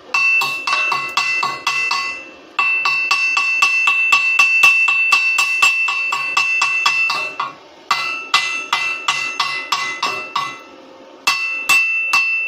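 A chipping hammer strikes a welded steel piece to knock off the slag. Quick metallic strikes come about four a second, each ringing with the same bright tone, in four runs broken by short pauses.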